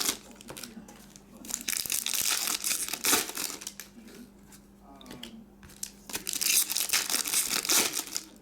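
Trading card pack wrappers being torn open and crinkled in the hands, in bouts of crackling: one at the start, one from about a second and a half in to past three seconds, and another near the end.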